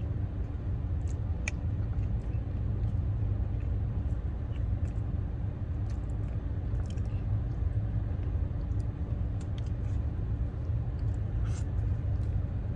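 Steady low rumble of a parked car idling with its air conditioning running, heard from inside the cabin, with a few faint small clicks over it.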